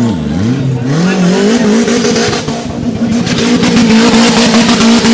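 Off-road buggy engine revving hard at high, steady revs with a fast flutter after a brief dip and climb in pitch. From about three seconds in, spinning tyres throw mud, adding a loud rushing spray as the buggy claws out of the mud pit.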